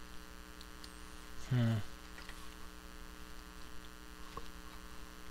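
Steady electrical mains hum, with a short low vocal murmur about one and a half seconds in and a faint click of small plastic parts being handled near the end.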